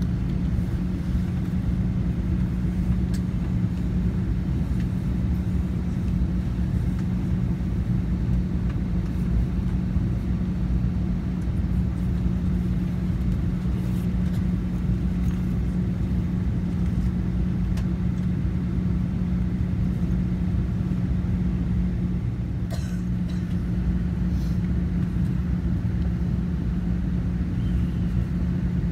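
Steady airliner cabin noise in flight: a constant low rumble with a held hum, and a few faint clicks about two thirds of the way in.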